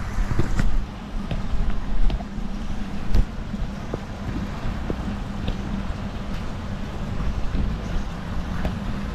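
Wind rumbling on the microphone, a fluctuating low rumble with a faint steady hum underneath and a few light clicks.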